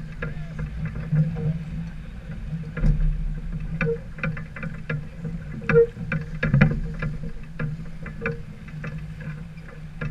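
Sailboat underway: a steady low rumble with many small clicks and knocks, and a soft tone that comes back about every two seconds.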